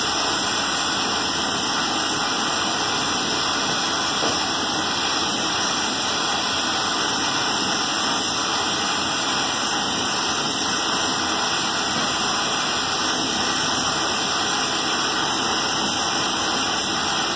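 Gas welding torch flame burning with a steady, even hiss while it heats a joint on a metal water pot.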